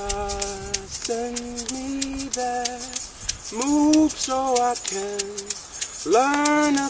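A voice singing a slow melody in long held notes, with gliding rises into some of them, accompanied by a shaker rattle keeping a steady beat.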